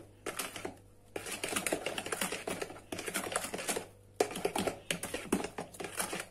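Metal hand whisk clicking and rattling rapidly against a plastic bowl as a runny mix of eggs, sugar and oil is whisked. It comes in three bursts, with short pauses about a second in and about four seconds in.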